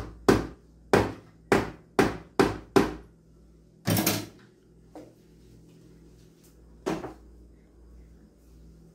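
A spoon rapped sharply against the rim of a mixing bowl about seven times in quick succession, knocking a heaped spoonful of ice-cream emulsifier into the bowl, followed by a short clatter and two more scattered knocks.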